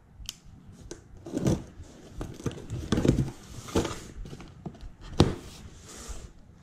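A small cardboard box being cut open and its flaps torn back: a series of irregular scraping, tearing and crinkling sounds from the cardboard and packing tape, with a sharp click about five seconds in as the loudest moment.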